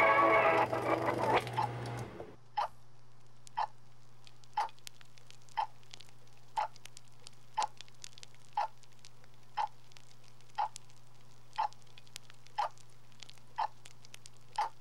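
Old television Christmas-special music ends about two seconds in. After that, a clock ticks evenly once a second over a steady low electrical hum.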